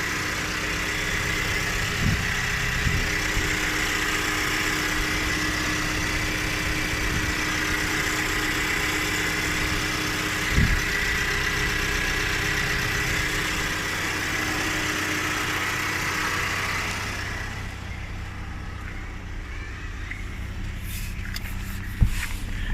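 Opel Astra K engine running stationary with a loud, steady high-pitched whine over the engine note: the unusual engine noise its owner is complaining about. About 17 seconds in, the whine fades and the sound gets a little quieter, with a few brief knocks along the way.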